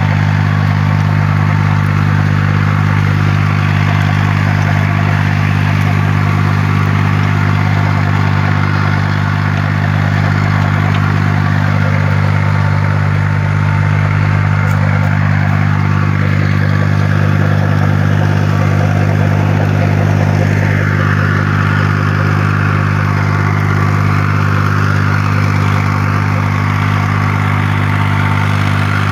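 Eicher 342 tractor's diesel engine running at a steady speed while it drives a Maschio rotary power harrow through the vineyard soil. The harrow's tines add a rattling, gritty noise over the engine hum, which grows louder about two-thirds of the way in.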